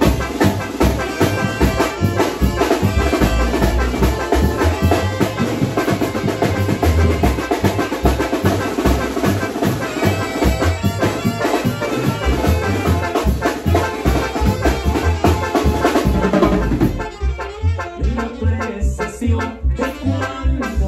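Live regional Mexican band playing: saxophones over keyboard and a driving drum beat. About 17 seconds in the full ensemble sound thins out to a sparser passage with the low beat still pulsing.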